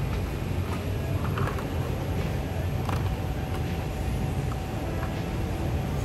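Steady low rumble of indoor store background, with faint scattered clicks and rustles as plastic blister-packed toy cars are handled on their display pegs.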